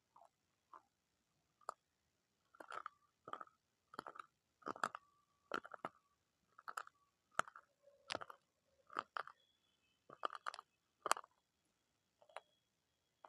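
Close-miked crunchy chewing: a run of short, separate crunches, about one or two a second, coming thickest through the middle.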